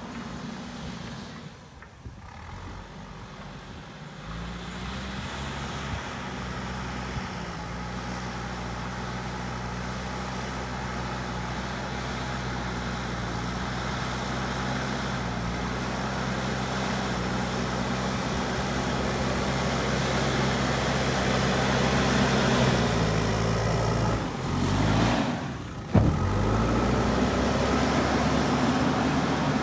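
JCB backhoe loader's diesel engine running at a steady pitch, revving up a few seconds in and holding there. Near the end the revs drop briefly, a sharp knock sounds, and the engine picks up again.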